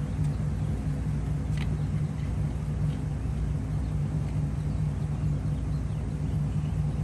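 Car engine idling steadily, a low even hum that neither rises nor falls.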